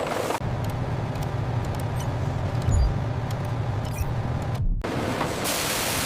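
Steady low engine-like rumble with a dull thump partway through. It cuts off abruptly, and a broad rushing hiss takes over near the end.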